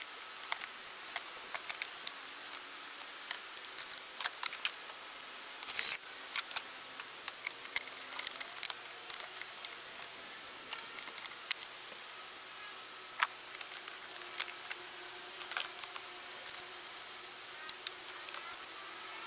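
Clicks and knocks of hard plastic engine-bay parts being handled and pushed into place as the air filter housing and intake duct are refitted by hand. There are a few louder knocks among many light clicks, over a steady faint hiss.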